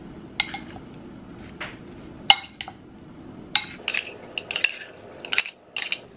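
A metal spoon clinking and scraping against a ceramic salad bowl and a small jar as ingredients are spooned in. There are a few single sharp clinks in the first half, then a quicker run of clinks and scrapes from about four seconds in.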